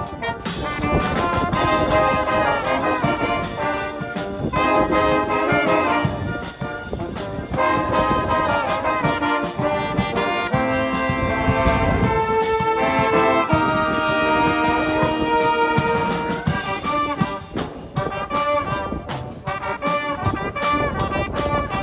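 A live brass band playing a tune, with trumpets and trombones carrying the melody over tubas and sharp percussion strokes that grow busier near the end.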